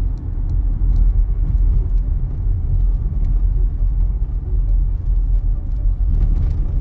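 Steady low rumble of a car driving, with faint scattered ticks over it.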